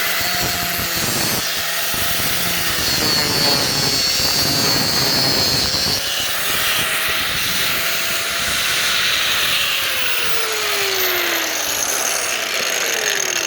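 Angle grinder fitted with a 6-inch electroplated diamond wheel cutting through PVC, a steady grinding noise. Its tone falls in pitch over the last few seconds.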